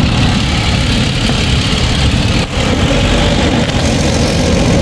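Toyota 1GR-FE 4.0-litre V6 idling, heard up close from the engine bay, with a momentary dip about halfway through. The engine has a shorted bank 2 sensor 1 oxygen sensor, which the mechanic blames for its low, vibrating idle.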